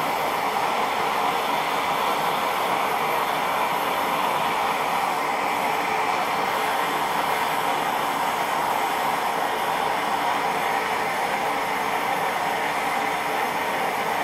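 Small homemade box forge's burner running with a steady, even rush of flame noise while a knife blade heats in its mouth.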